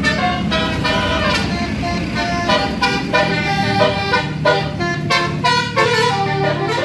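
Bus telolet horn, a set of multi-tone air horns, playing a tune as a rapid run of changing notes, with the bus engine running underneath.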